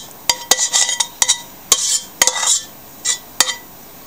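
Metal spoon knocking and scraping against a stainless steel pot while scooping sticky cooked sushi rice; the pot rings briefly after each knock. The knocks come thick in the first two and a half seconds, then a couple more near the end.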